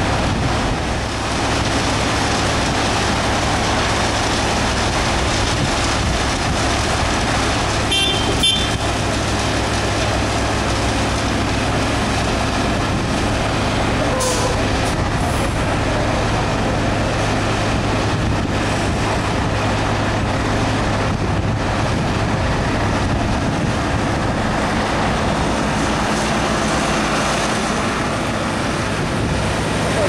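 Heavy diesel machinery running steadily: a tipper truck's engine and an asphalt paver droning together as the truck unloads hot asphalt into the paver's hopper. A short hiss comes about halfway through.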